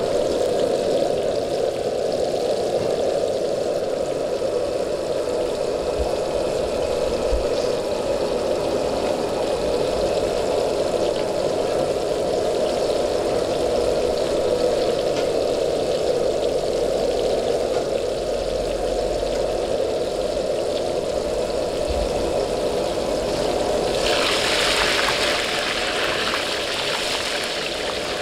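Battered pork pieces deep-frying in a wok of hot oil, a steady bubbling sizzle over the steady rush of the wok's gas burner. Near the end the sizzle turns louder and brighter as a ladle stirs the pieces through the oil.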